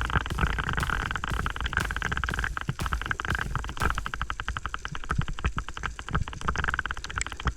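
Underwater ambience picked up through a camera housing: dense, irregular crackling clicks over a low rumble of moving water.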